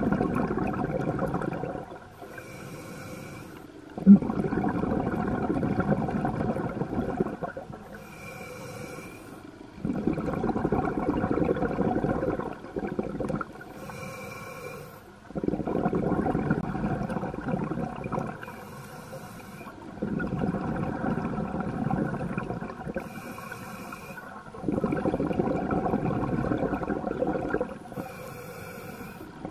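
A scuba diver breathing underwater through a regulator: about six slow, even breaths, each a few seconds of rumbling exhaust bubbles alternating with a shorter, quieter hissing inhale through the demand valve. A single sharp click about four seconds in.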